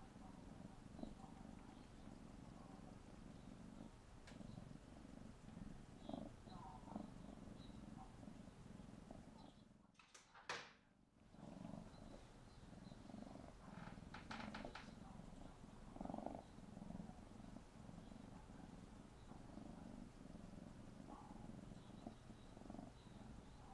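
Tabby kitten purring steadily while kneading, with a few soft clicks scattered through. The purring breaks off for about a second, about ten seconds in.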